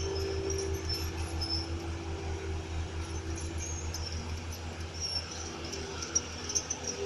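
Heavy diesel earthmoving machinery at work: a steady engine with a fast, even low pulsing, and short high squeaks scattered throughout, typical of crawler tracks.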